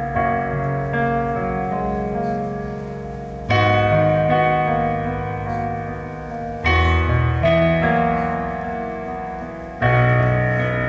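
Piano playing slow, sustained chords: a new chord is struck roughly every three seconds and left to ring and fade.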